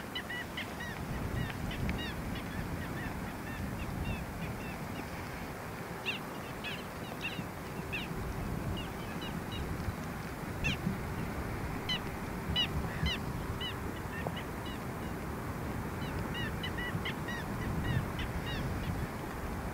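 Small birds chirping in many short, high calls over a steady low rumble from a slowly moving train.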